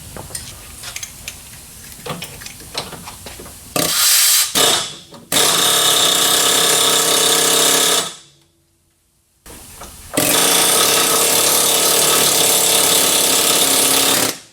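Handheld power tool running in bursts: a short stuttering start about four seconds in, then a steady run of about three seconds, a pause, and a run of about four seconds. Light tool clatter before it.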